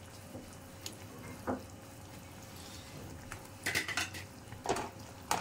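A cooking spoon clinking and scraping against the pan a few times as papads are pressed down and turned over in gravy.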